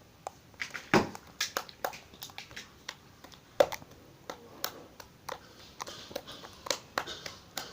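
Soft, stretchy homemade slime being squeezed and stretched by hand, giving irregular sticky clicks and small pops, with a louder pop about a second in and again about three and a half seconds in.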